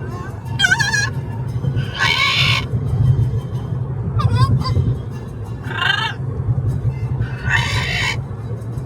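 A parrot calling and screeching inside a moving car: about five calls, some wavering whistle-like notes and some harsh screeches, over the steady low rumble of the road.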